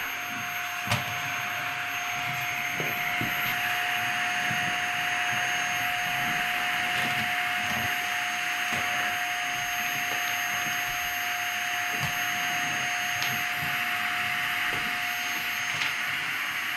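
Canister vacuum cleaner running steadily, a constant rush of air. There is a sharp click about a second in.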